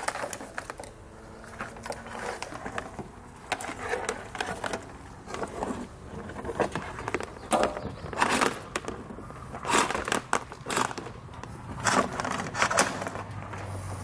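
Irregular clicks and rustling of a trailer wiring harness being handled: the wire and its plastic T-connector scrape and knock against the bumper and body as it is fed down and pulled out underneath.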